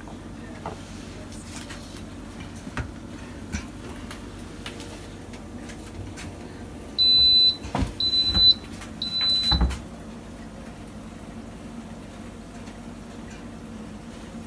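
Instant Pot Duo electric pressure cooker beeping three times at the same high pitch, the signal that its pressure-cook program has started, mixed with low knocks of the lid being turned and locked. Light clicks of the lid being handled come before.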